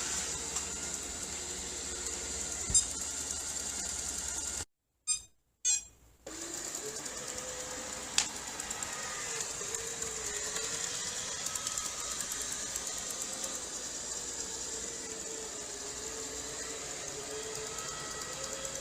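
Robot vacuum cleaner running with a steady whir and a high whine, a wavering hum underneath; the sound cuts out twice, briefly, about five seconds in, then carries on.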